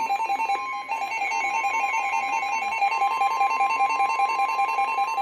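Emergency Alert System attention tone signalling a severe thunderstorm warning. A loud electronic alarm warbles rapidly between two pitches, and a steady higher tone joins about a second in.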